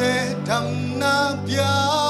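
A live worship band playing a slow gospel song, with a singer holding long, wavering sung notes over sustained instrumental chords.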